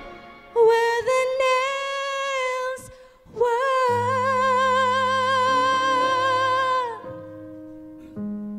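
A female solo singer holds two long notes with vibrato. A low sustained accompaniment chord comes in under the second note, which slides down in pitch as it ends.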